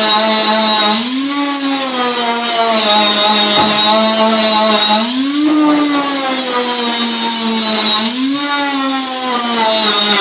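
Electric power tool motor running steadily while shaping a wooden bow. Three times its pitch jumps up and then slowly sags back as the tool works the wood.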